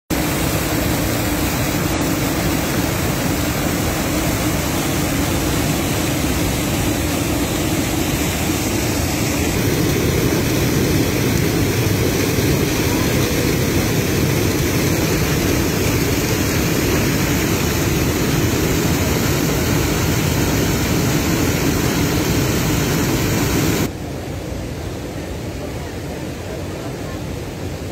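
Water of the Ain Asserdoun spring rushing and splashing down its cascades in a steady, loud roar, swollen by rain. About 24 seconds in it drops suddenly to a quieter, duller rush.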